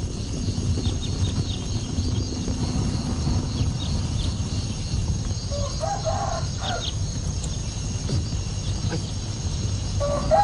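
Chicken clucking, a short pitched call about six seconds in and another near the end, over a steady low background rumble with faint high chirps.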